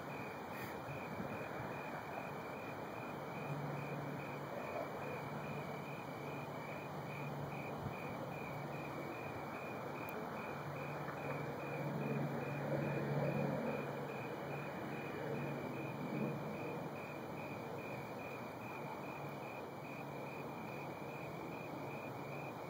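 Crickets chirping in a steady, even rhythm, with a low hum underneath from a few seconds in until about two-thirds of the way through.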